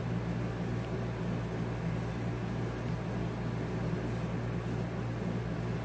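Room air conditioner running with a steady, noisy hum.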